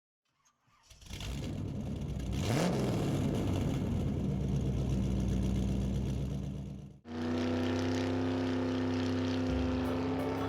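Car engine sound effect starting up and revving, with a rising rev about two and a half seconds in, then cutting off suddenly. A second steady engine-like sound follows at once.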